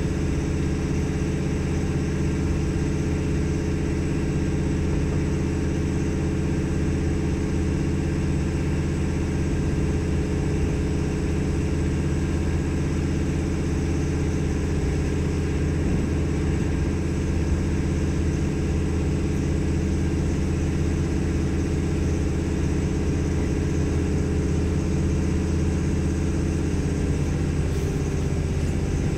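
Diesel engine of an AKN diesel railcar (DMU) running at a steady speed, a loud, even drone with a slight shift in pitch near the end. The recording is overdriven by a microphone gain set too high for the loud surroundings.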